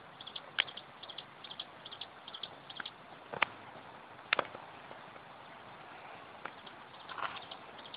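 Open-air rural ambience: a steady hiss under many short, high chirps repeating in quick clusters, from small creatures such as insects or birds, with a few sharp clicks about half a second, three and a half and four and a half seconds in.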